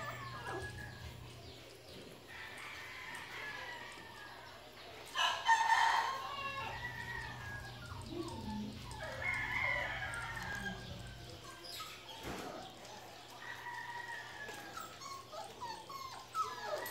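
A rooster crowing loudly about five seconds in, among repeated high-pitched whining calls from one-month-old puppies.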